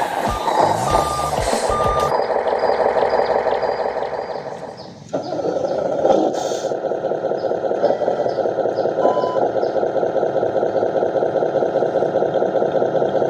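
Truck reversing beeper sounding about twice a second, then a steady truck engine sound that breaks off abruptly twice.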